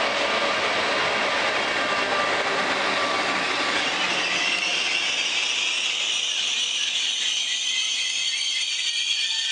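Trenitalia Frecciabianca express train, hauled by a streamlined electric power car, running through a station at speed with its coaches rattling over the track. About halfway through the low rumble fades, leaving a high hiss as the coaches go by close.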